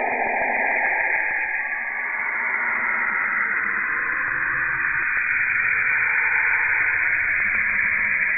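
Audio conversion of Saturn kilometric radiation, radio waves emitted along with Saturn's aurora and picked up by the Cassini spacecraft's Radio and Plasma Wave Science instrument, shifted down in frequency into hearing range. It is a dense, steady, high hiss with faint sweeping tones beneath it.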